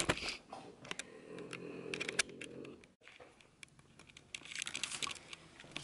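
Handling noise from a hand-held camera being moved about: scattered clicks and taps of fingers on the camera body, with a short dead gap about three seconds in.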